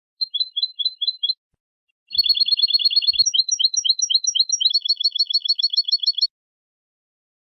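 European goldfinch (chardonneret) singing: a short run of quick paired notes, then after a pause about four seconds of fast, rhythmic trilled phrases that change pattern twice before stopping abruptly.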